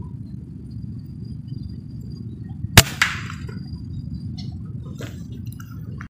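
A single sharp rifle shot about three seconds in, followed at once by a second crack, over a steady low rumble of wind on the microphone. A smaller click comes about two seconds later.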